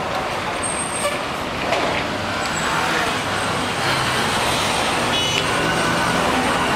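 Street traffic: steady noise of passing cars and trucks, with a brief high-pitched tone about five seconds in.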